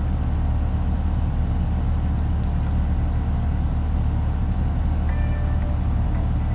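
Steady low machinery hum, with a brief faint high tone about five seconds in.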